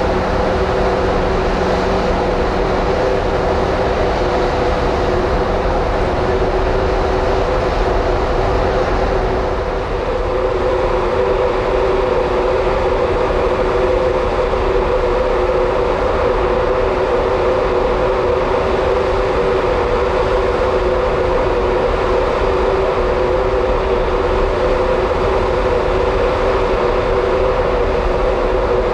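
Steady machinery drone of the Mega Smeralda cruise ferry underway, heard on its open deck: an even rushing noise with two steady hum tones on top.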